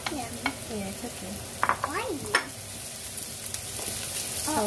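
Chopped onion and garlic sizzling in olive oil in a frying pan, stirred with a wooden spatula that scrapes and taps against the pan several times in the first couple of seconds.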